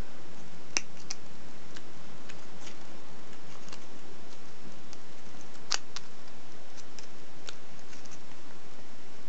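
Thin gold foil of a chocolate-coin wrapper crinkling and crackling in small clicks as fingers fold its corners in, two sharper crackles standing out, over a steady hiss.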